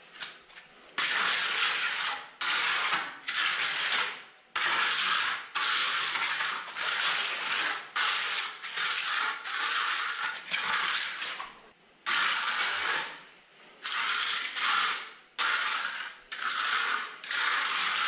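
Wet concrete being mixed by hand in a plastic tub: repeated scraping, grinding strokes of the tool through the gritty mix, about one a second with short gaps.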